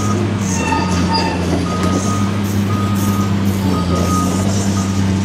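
Diesel engine of a Caterpillar long-reach demolition excavator running steadily, with a backup alarm beeping repeatedly over it.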